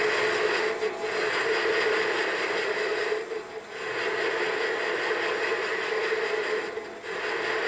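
Metal lathe running with a parting tool cutting into a spinning finned engine cylinder: a steady hiss and whine of the cut. It dips briefly about a second in, around three and a half seconds in, and near the end.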